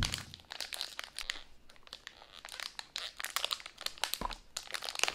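Foil blind-box bag crinkling in quick, irregular crackles as it is squeezed and felt in the hands. A soft thump comes about four seconds in.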